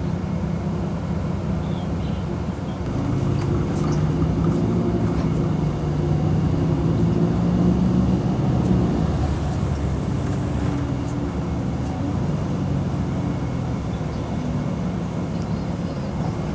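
Engine of road construction machinery running steadily, growing louder for a few seconds in the middle and then easing off.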